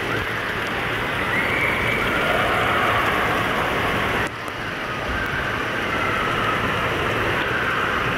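Steady rush of spraying and splashing water from water-park sprays and fountains, echoing in a large indoor pool hall. The level briefly drops about four seconds in.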